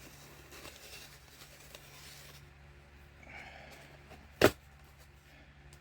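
Faint scraping of a blade cutting through the tape on a cardboard box, with one sharp knock about four and a half seconds in.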